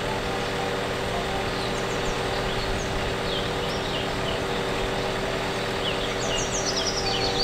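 Engine and hydraulics of a van-mounted aerial work platform running steadily as its boom moves, a constant hum, with birds chirping now and then.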